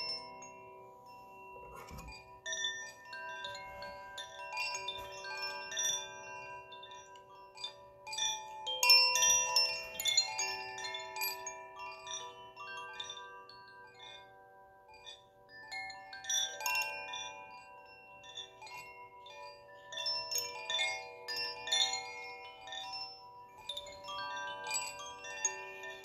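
Hanging cylindrical wind chimes sounding, their inner clappers striking the tuned rods in clusters of bright, overlapping tones that keep ringing between strikes. Several fuller flurries of strikes come and go.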